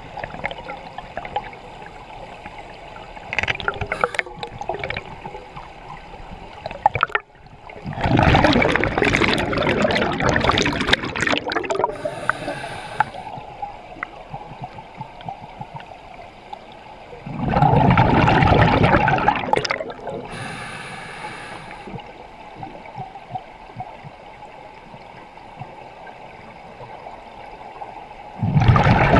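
Scuba regulator heard underwater: three loud bubbling bursts of exhaled air, each a few seconds long and about ten seconds apart, with a quieter steady hiss between them.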